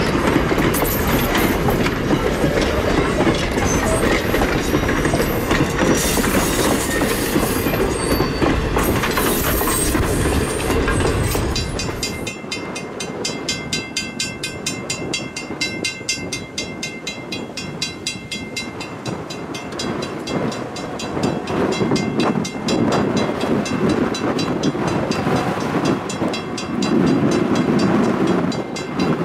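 Passenger coaches of a heritage steam train rolling past at close range, their wheels clicking over the rail joints. After about twelve seconds the sound cuts to a much quieter stretch, with a low rumble building near the end.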